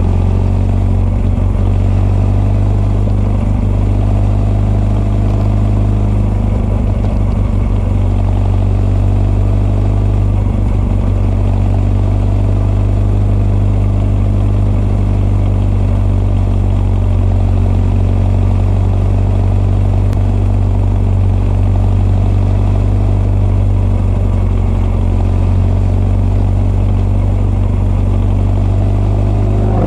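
Honda CB1300 SF inline-four running at a steady engine speed, the raw intake of its Keihin FCR41 carburettors mixed with the deep note of an r's gear Wyvern exhaust, with no big rises or drops in revs.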